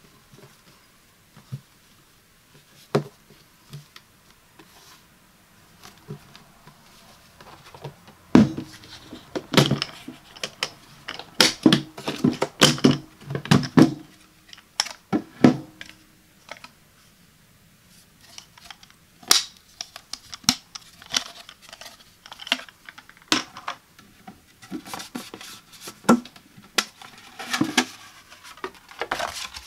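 Hard plastic food storage container handled up close: scattered sharp clicks, taps and knocks of its plastic body and lid, with the rustle of its cardboard label insert being taken off. The clicks come sparsely at first, then thick and fast from about eight to sixteen seconds in, and again near the end.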